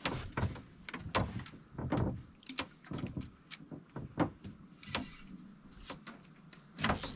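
A run of irregular sharp knocks and clicks, two or three a second, with a louder cluster near the end.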